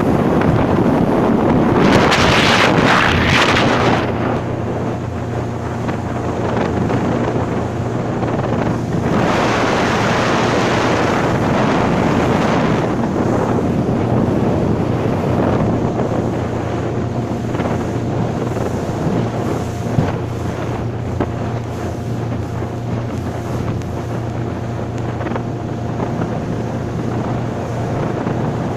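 Wind buffeting the microphone on a speeding motorboat, over the steady hum of its engine and water rushing past the hull. The wind comes in stronger gusts about two seconds in and again around ten seconds in.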